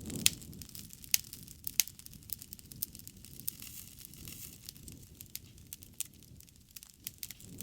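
Wood fire crackling: sharp pops and snaps at irregular intervals over a low rustle of burning. A soft hiss rises a little after the middle.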